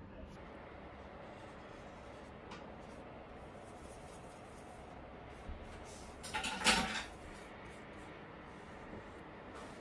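Quiet room tone with soft handling sounds as a paintbrush works acrylic paint on a plastic palette. A brief, louder handling noise comes about six and a half seconds in.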